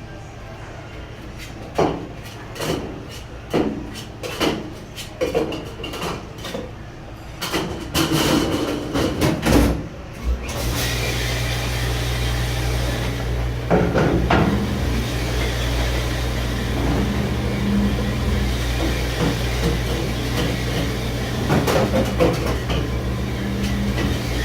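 Dishes and racks clattering in quick knocks, then about ten seconds in a commercial dishwasher starts its wash cycle: a loud, steady machine hum with a rushing spray that keeps going.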